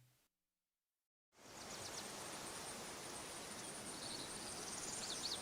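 Faint outdoor ambience: a steady hiss with a continuous high-pitched insect buzz and small birds chirping, the chirps coming more often near the end. It begins about a second in, after a short dead silence.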